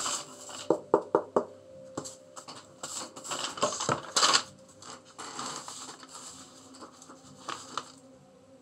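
Hands rubbing and wiping across a sand-covered art board, with a quick run of sharp taps about a second in, scratchy rubbing bursts from about three to four and a half seconds in, then softer rubbing and a couple of clicks near the end.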